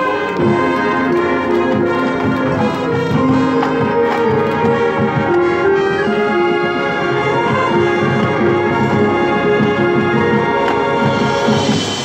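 Marching band playing: brass holding a melody of sustained notes over drums and front-ensemble percussion, with a rising hiss near the end.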